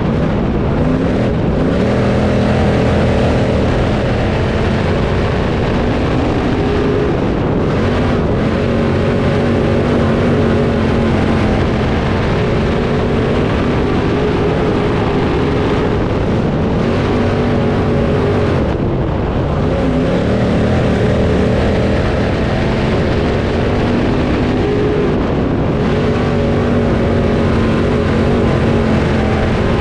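Late model race car engines running laps on the oval, loud and continuous. The engine pitch climbs and then drops in a cycle that repeats every eight or nine seconds as the cars accelerate down the straights and lift for the turns.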